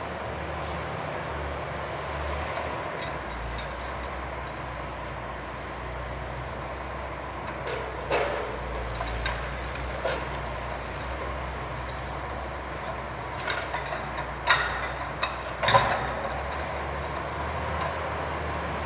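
Logging machine's engine running steadily, with sharp knocks and clanks of logs or metal: a couple about halfway through, then a louder cluster a few seconds later.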